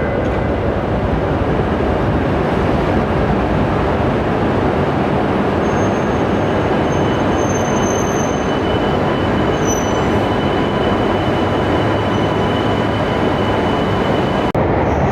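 Shinkansen train moving along the platform of the underground station: a loud, steady rumble of wheels and traction motors, with a thin high whine joining about six seconds in. The sound breaks off sharply for an instant near the end.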